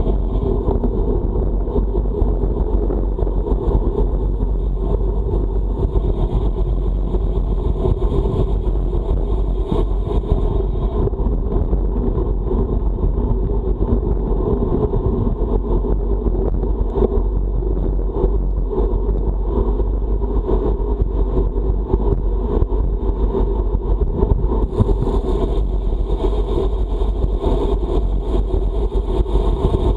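Steady wind rush and low rumble over the microphone of a camera riding on a moving road bike, in a strong headwind.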